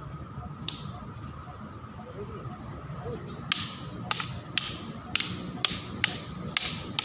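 Hard sticks striking each other in a stick-fighting drill: one sharp clack about a second in, then from about halfway a regular run of sharp clacks, about two a second.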